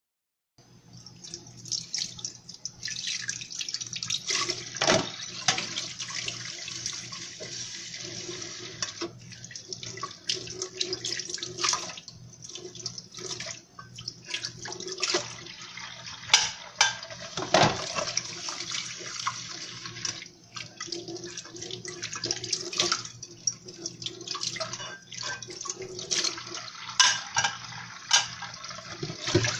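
Washing dishes at a sink: a tap running steadily while plates, glasses and cutlery clink and knock against each other and the sink, many times at irregular intervals.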